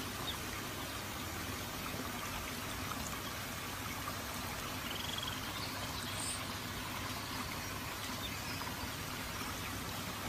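Steady trickling and splashing of running water from a koi pond's artificial waterfall, with a couple of faint short high chirps about halfway through.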